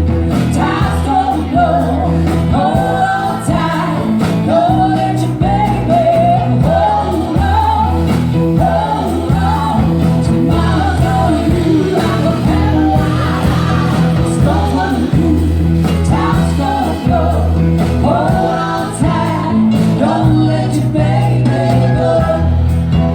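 A band playing a song, a singer's voice over guitar and steady low notes.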